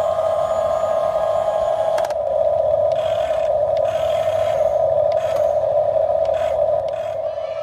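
Toy RC excavator running: a steady high-pitched whine with a few short clicks and rattles.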